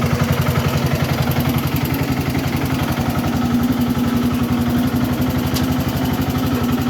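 Engine idling steadily with the manual transmission in gear and the clutch engaged. The gearbox runs quiet, with no gear noise, after its cluster gear was repaired.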